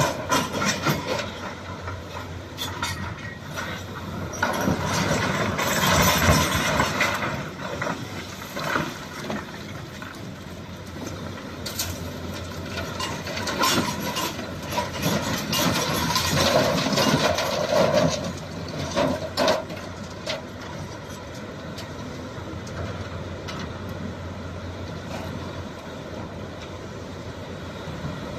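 Shantui excavator's diesel engine running steadily, rising and falling in loudness, with scattered metallic clanks and knocks.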